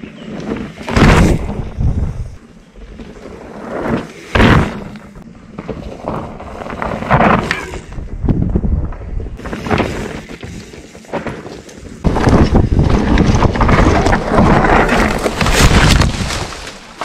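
Trek Slash mountain bike ridden fast down a dry, dusty, rocky trail: tyres crunching and skidding over dirt and stones, with wind buffeting the action camera's microphone. The noise comes in several surges, then holds loud and continuous for the last five seconds before cutting off suddenly.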